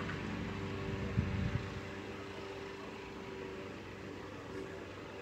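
A steady low mechanical hum, like a motor or engine running, under a faint outdoor hiss, with a short low thump about a second in.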